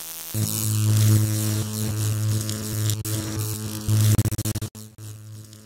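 Electric buzzing sound effect for an animated neon logo: a loud, steady mains-like hum with crackling static, stuttering in rapid flickers about four seconds in before cutting down to a quieter tail.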